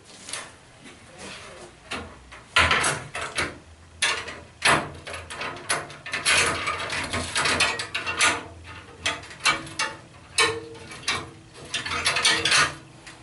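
Aluminium folding attic ladder being handled at its hinge and rails: irregular metal clicks, knocks and rattles, with louder clusters of clatter a few times.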